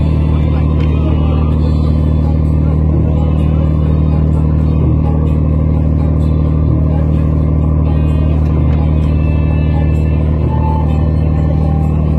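A fishing boat's engine running steadily with a low, even drone.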